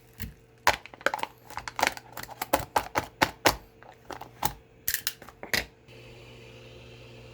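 A quick series of sharp plastic clicks and knocks from the Tronxy XY-2PRO 3D printer and its parts being handled and set up. About six seconds in, a steady machine hum with a light fan hiss starts up and keeps running.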